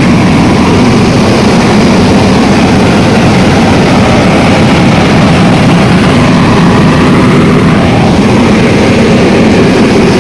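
Diesel engine of a SANY SR155C piling rig running loud and steady at full speed, heard up close at its open engine compartment, just started after an engine oil and filter change.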